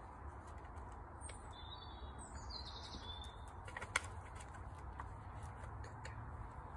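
A small bird chirping and trilling for about two seconds over a steady low rumble, with one sharp click about four seconds in.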